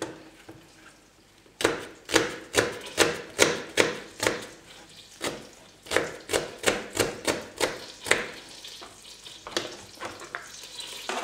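Kitchen knife chopping onion on a plastic cutting board: runs of quick knocks, about four a second, starting about a second and a half in and thinning out later. Near the end a sizzle starts as the onion pieces go into hot margarine.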